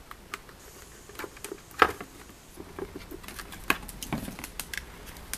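Hard plastic motorcycle helmet shell being cut and handled: irregular clicks, snaps and knocks, the loudest a sharp snap about two seconds in.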